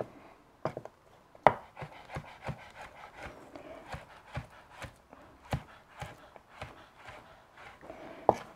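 Chef's knife slicing raw pork skin into thin strips on a cutting board: light, irregular knocks of the blade against the board, about two to three a second.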